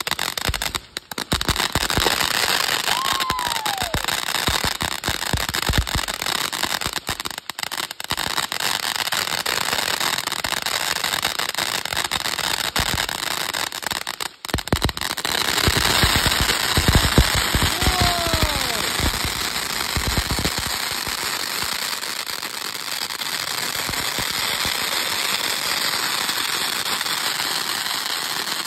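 Ground fountain fireworks spraying sparks: a continuous loud hiss with crackling pops throughout. There are two short falling whistles, one a few seconds in and another past the middle.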